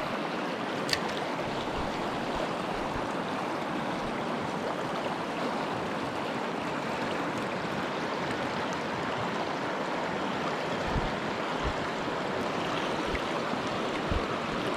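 Mountain river water rushing steadily over rocks, with a click about a second in and a few low knocks late on.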